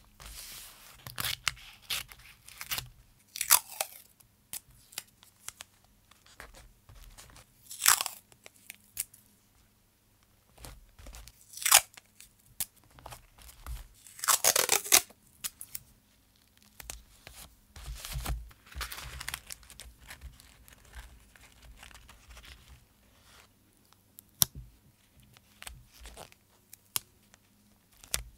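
Paper washi tape and masking tape being peeled from the roll and torn, with the paper crinkling and being pressed and smoothed down by hand. The sound comes as a series of short rasping peels and tears with quiet gaps between them; the longest and loudest is about halfway through.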